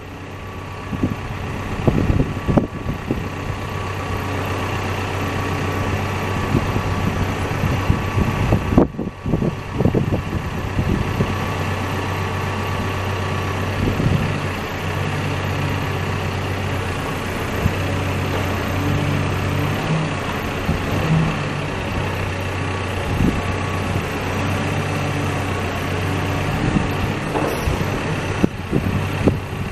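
Caterpillar backhoe loader's diesel engine running steadily, its note shifting now and then as a higher tone comes and goes, as when the hydraulic controls are worked during the startup cycle.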